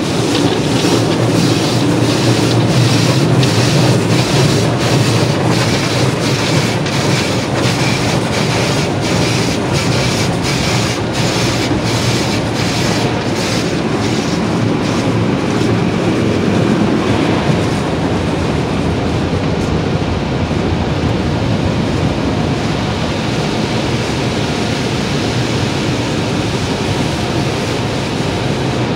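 Automatic tunnel car wash heard from inside the car: spinning cloth brushes slap against the body in a steady beat of about two strokes a second over a loud rush of water spray and machinery. About halfway through the slapping fades, leaving only the steady rush.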